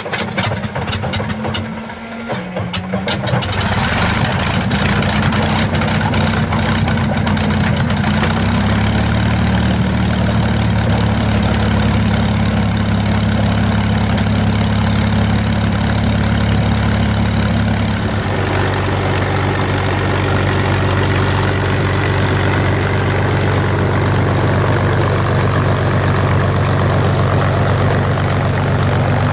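P-51 Mustang's V-12 aero engine starting: a few seconds of irregular popping as it turns over, then it catches and runs steadily, its note shifting once about two thirds of the way through.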